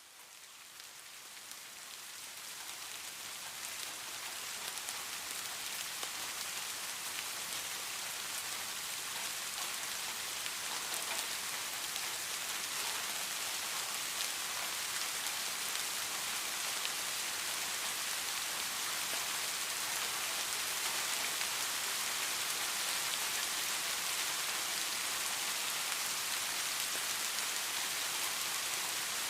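Steady rain, a dense even hiss with fine drop ticks, fading in over the first few seconds and then holding level.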